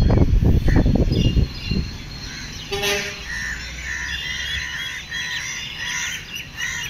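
Low gusts of wind rumbling on the microphone for the first second and a half. Then small birds chirping in a quick repeated run, about two chirps a second.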